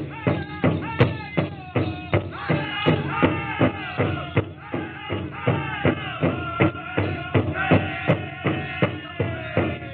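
Pow wow drum group: a large drum struck in a steady beat of about three and a half strokes a second, with singers' high, held chanting over it.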